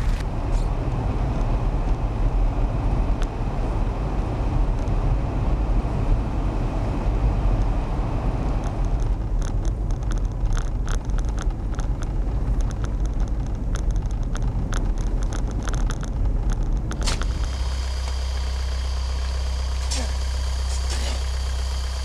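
Rumbling wind and road noise from a vehicle driving through a snowstorm, with scattered sharp clicks. About seventeen seconds in it changes suddenly to the steady hum of a vehicle engine idling while it sits stuck in deep snow, with crunches and scrapes of snow being dug out by hand.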